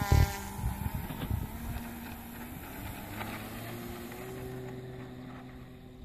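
Electric RC model plane: a Turnigy G110 outrunner motor turning a three-blade 16x10 propeller, running at takeoff power with a steady drone of several tones that grows fainter as the plane moves away. Low buffeting of wind on the microphone in the first second and a half.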